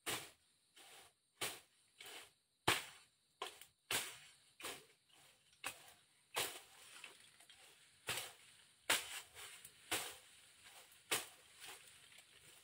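Machete strokes slashing through grass and brush while clearing undergrowth: sharp, short swishing chops at an uneven pace, about one or two a second.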